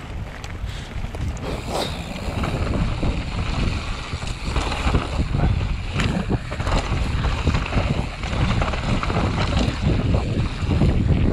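Wind buffeting the microphone during a fast bicycle descent on a rough trail, with a low rumble and many small knocks and rattles from the bike. The rush gets louder over the first few seconds.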